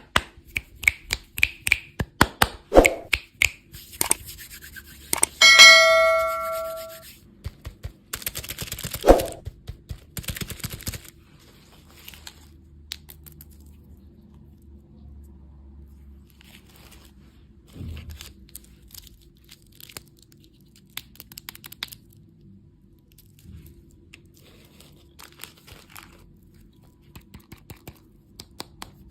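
Candy packaging being handled and opened: a quick run of sharp taps and clicks, then a single ringing ding about five seconds in that fades over a second and a half. A few seconds of tearing and crinkling wrapper follow, then only sparse soft clicks.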